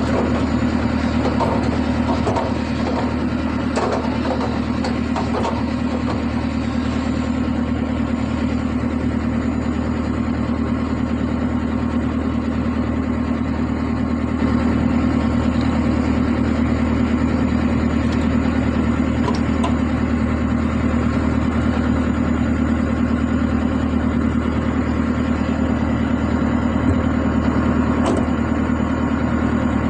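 Excavator's diesel engine running steadily, with a few light knocks in the first several seconds and a small rise in level about halfway through.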